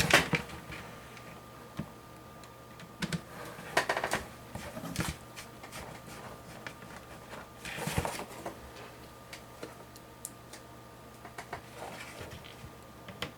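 Scattered clicks and clatters of small hardware being handled while PC case fans and their screws are fitted into a computer case, coming in short clusters a few seconds apart.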